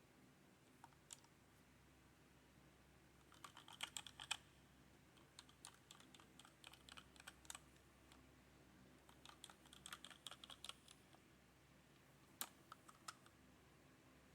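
Keys clacking on a HyperX Alloy Origins Core mechanical keyboard with linear red switches, typed in four short spurts of rapid presses, faint between the spurts.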